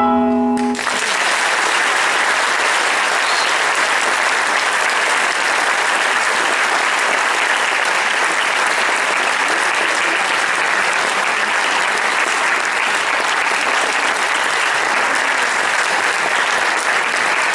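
Audience applauding steadily, starting as the last piano notes end less than a second in.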